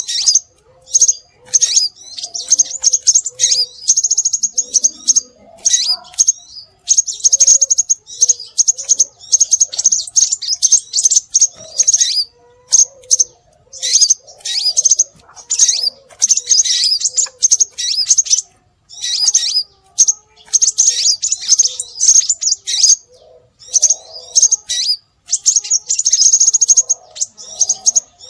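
Scarlet minivet calls, used as a bird-lure recording: rapid, high-pitched chirping in bursts of a second or two, with short gaps between them.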